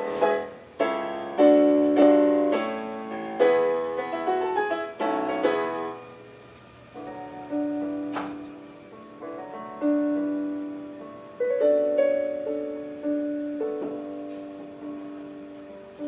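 Yamaha Piaggero NP-31 electronic keyboard playing a piano piece through its built-in speakers, with no one at the keys, so most likely one of its built-in demo songs. Struck notes and chords each fade away, with a softer, sparser passage about six seconds in.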